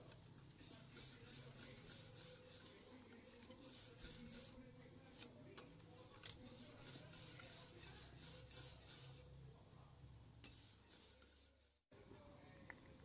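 Faint, quick, rhythmic scraping of a whisk stirring thickening orange cream in a saucepan, about three or four strokes a second.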